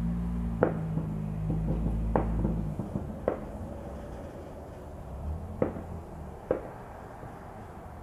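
Aerial fireworks shells bursting about 5 km away: five dull, separate bangs at uneven intervals. A low steady hum underneath stops about a third of the way in.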